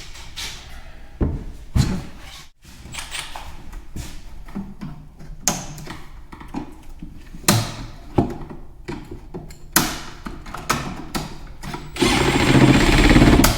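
Scattered knocks and clicks of parts and tools being handled, then a cordless drill/driver running for about a second and a half near the end.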